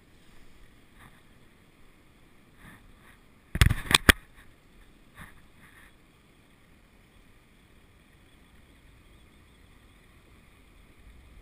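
A quick cluster of loud knocks from rod and gear bumping against a plastic sit-on-top kayak, about three and a half seconds in, with a few lighter clicks before and after over faint water noise.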